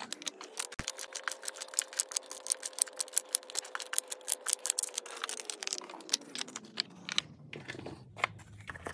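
Plastic K-cup coffee pods being pushed one after another into the holders of an under-cabinet pod organizer: a rapid run of small clicks and taps.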